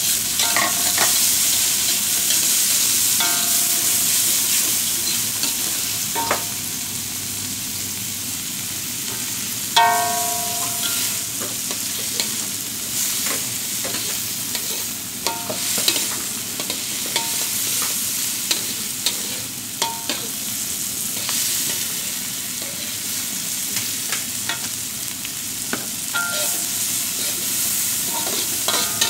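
Chopped pete beans, green chilli, garlic, spring onion and tomato sizzling in hot margarine in a wok, with the spatula scraping and knocking against the pan again and again. Each knock sets the wok ringing briefly; the loudest comes about ten seconds in.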